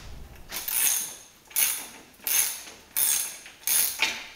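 Ratchet wrench clicking through five quick back-and-forth strokes, about one every 0.7 s, backing out the 14 mm bolt that holds the outboard's jet lower unit.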